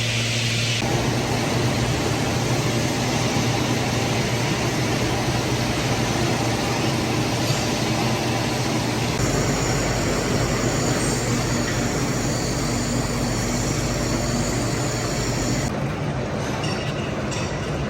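Metal lathe running steadily while turning a bronze bush: a low motor hum under a constant machining hiss, its character shifting abruptly a few times.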